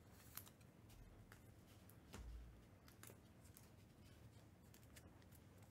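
Near silence with a few faint clicks and a soft bump about two seconds in: trading cards being handled.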